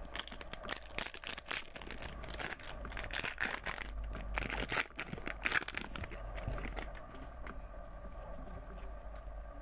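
A foil trading-card pack being torn open and its wrapper crinkled: a dense run of crackling and tearing for about six seconds, then softer handling noise as the cards are pulled out and held.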